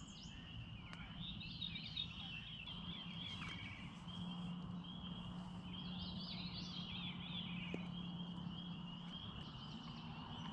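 Faint riverside evening ambience: a steady high-pitched trill runs throughout, and bird chirping and chatter comes in twice over it.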